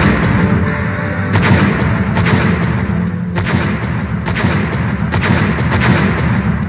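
Controlled demolition of a stadium grandstand: several sharp bangs from the explosive charges over the heavy, continuous low rumble of the structure collapsing.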